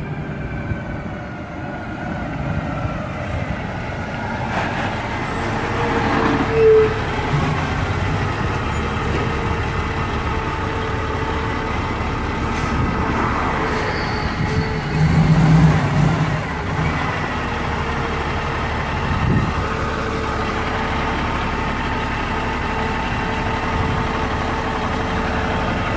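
Kenworth truck's diesel engine running at close range, getting louder as the truck pulls up alongside, with a couple of brief louder swells.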